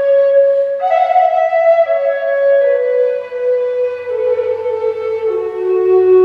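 Wooden end-blown flute playing a slow melody of long held notes: it steps up about a second in, then steps down note by note to its lowest note near the end.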